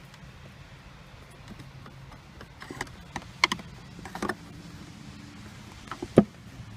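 Scattered sharp clicks and taps of a Torx driver and plastic trim as the T20 screws under the center console controller are worked loose, the loudest knock about six seconds in, over a low steady hum.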